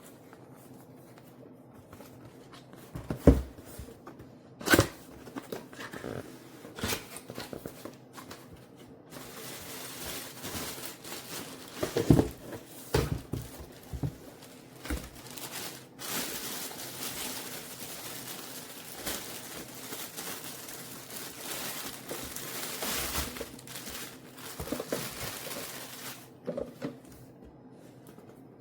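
Packaging being handled: several knocks and bumps, then a long stretch of plastic or paper crinkling and rustling with more knocks in between.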